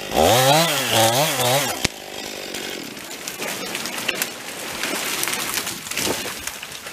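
A chainsaw revving up and down twice, then the crackling and snapping of a cut ash tree giving way, with its fall landing near the end.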